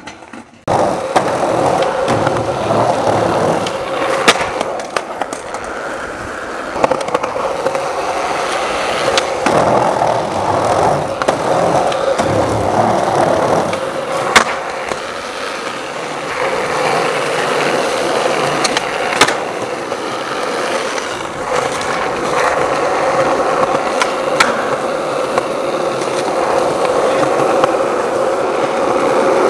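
Skateboard wheels rolling over concrete with a steady roar, broken several times by sharp clacks of the board popping and landing.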